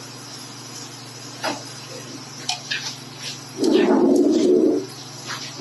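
Spatula scraping and knocking against a ridged wok while stirring sautéing chicken pieces: a few light scrapes, then one louder rasping scrape lasting about a second, a little past halfway.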